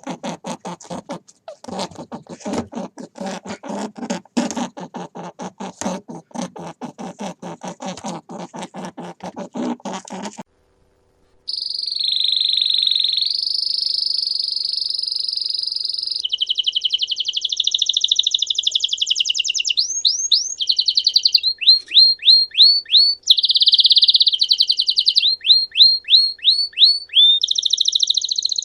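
For about ten seconds there is a quick, even patter of clicks, several strokes a second. After a brief gap a canary sings: long high trills broken by runs of quick repeated chirps.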